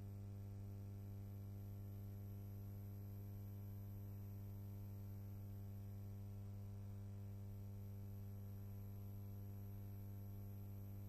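Steady low electrical hum with a buzzy row of higher overtones and faint hiss, unchanging throughout.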